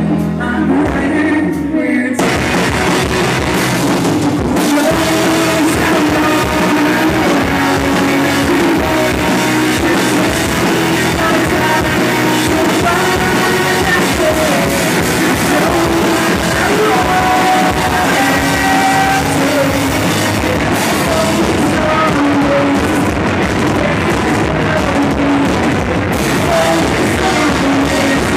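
Live rock band playing: electric guitars, keyboards and drum kit, with a voice singing over them. About two seconds in, the full band with cymbals comes in loud.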